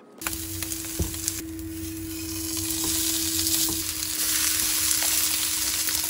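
Beef, green chili peppers and garlic sizzling in a frying pan on a gas range. The sizzle starts suddenly and grows louder, with a few light clicks of metal tongs turning the food.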